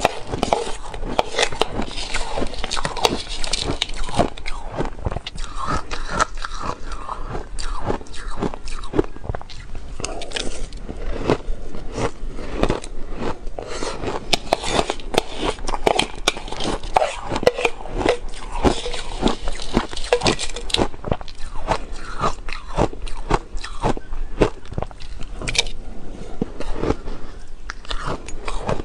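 Close-miked crunching and chewing of big mouthfuls of crushed ice, a dense, continuous run of sharp crunches, with a metal spoon scraping and scooping ice in a glass bowl between bites.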